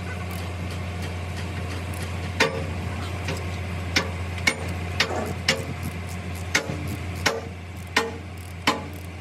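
Ratchet wrench clicking as it turns bolts on a bulldozer's track sprocket: about eight sharp clicks at uneven spacing, starting a couple of seconds in, over a steady low hum.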